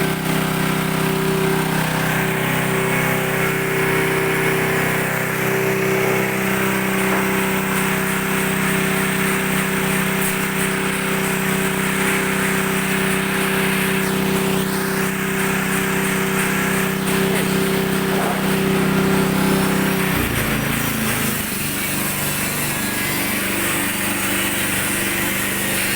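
Coconut-milk pressing machine running, its motor giving a steady, loud mechanical hum. About three-quarters of the way through, the hum drops in pitch and turns rougher and weaker, then carries on.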